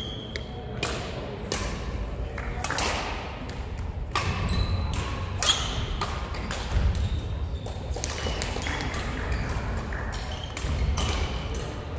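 Badminton rally: a series of sharp hits as rackets strike the shuttlecock, with brief high shoe squeaks and footfalls on the wooden court floor, echoing in the large sports hall.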